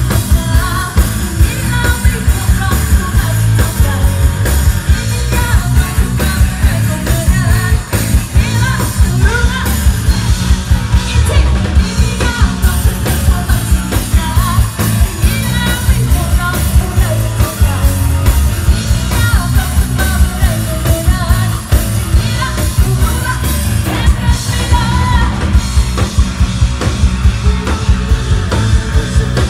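Live rock band playing loudly, with a woman singing lead over drum kit, bass guitar, electric guitar and keyboard; a steady driving drum beat runs under the heavy bass.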